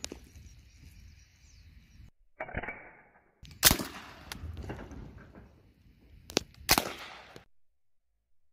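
Gevarm A6 open-bolt .22 rifle firing single sharp shots, the loudest about three and a half seconds in and the last two under half a second apart.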